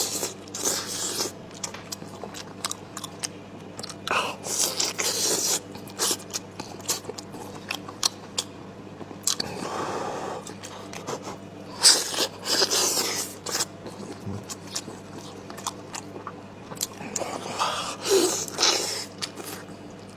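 A person chewing and biting meat close to the microphone: steady wet mouth clicks and smacks, with a few louder, noisy bursts of eating sounds every few seconds.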